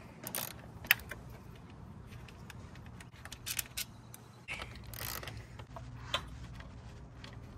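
Hand ratchet and loose bolt being handled while taking out a 10 mm intercooler mounting bolt: scattered light metallic clicks and clinks, with a couple of brief scuffs a little past the middle. A faint steady low hum runs underneath.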